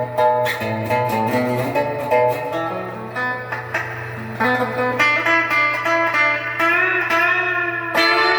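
Donner DST200 electric guitar played through an amp with its humbucker split to the outer coil: picked single notes and short lines, with bent, wavering notes near the end.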